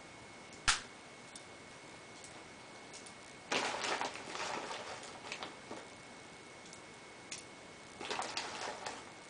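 Small clicks and rattles of BBs being pressed one at a time into an airsoft pistol magazine, its spring follower held down by hand. There is one sharp click about a second in, then two short bursts of clicking and rattling, one in the middle and one near the end.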